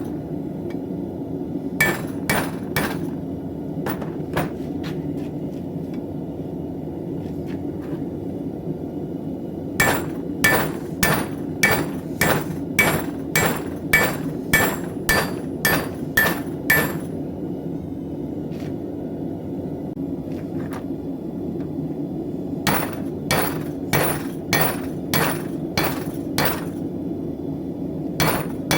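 Blacksmith's hammer forging a knife blade on an anvil, ringing metallic blows in bursts of about two a second: a few early strikes, a long run in the middle and another near the end, with pauses between. A steady low rumble runs underneath.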